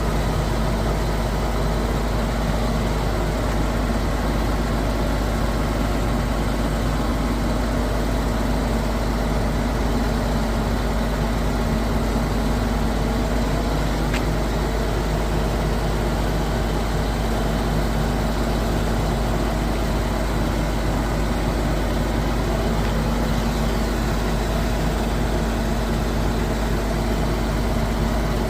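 Heavy diesel engine of a concrete pump truck running steadily with an even, unchanging drone.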